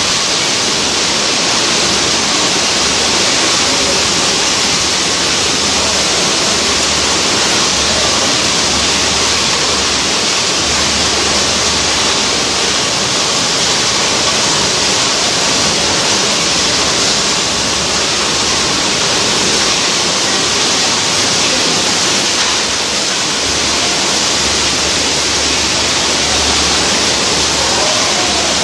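Steady, loud, hiss-like din of a running canning line, with conveyors, cans and machinery mixing into an even rush and no distinct beats or tones.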